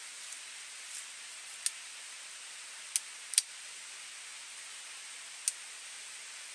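Dry twigs and brush snapping sharply four times as brush is cleared by hand, over a steady hiss.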